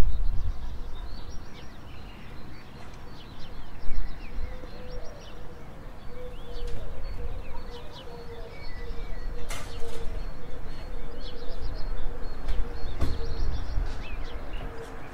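Small birds chirping in the background, many short high chirps over a low rumble, with two sharp clicks, about nine and a half and thirteen seconds in.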